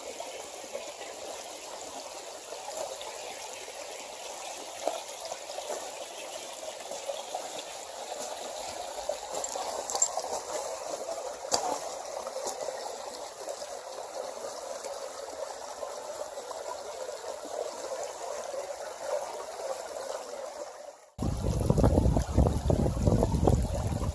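Creek water trickling and burbling steadily. About 21 seconds in it cuts abruptly to a louder, rougher noise with a low rumble.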